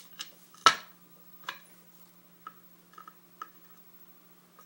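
Small metal clicks and ticks from a five-pin Schlage lock cylinder being handled while it is taken apart: one sharp click about two-thirds of a second in, then several lighter ticks.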